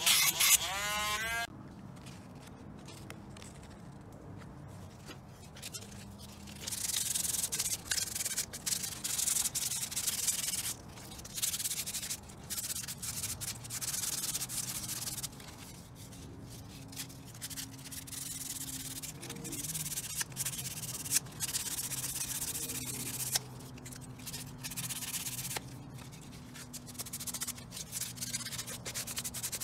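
Hand sanding of a carbon-fibre piece: sandpaper scrubbed back and forth in uneven stretches with short pauses. At the start a small rotary tool winds down, its whine falling in pitch.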